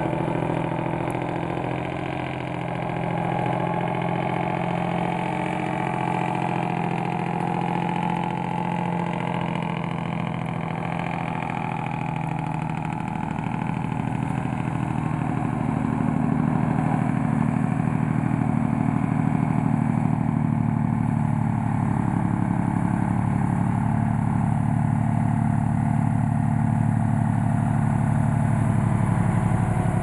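1973 Kenworth logging truck's diesel engine running on its Jake brake (engine compression brake) while the loaded truck descends. A steady, rapidly pulsing engine sound that grows louder from about halfway through as the truck approaches.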